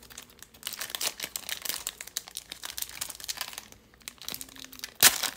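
Foil wrapper of a trading-card pack being torn open and crinkled by hand, with a louder crackle near the end.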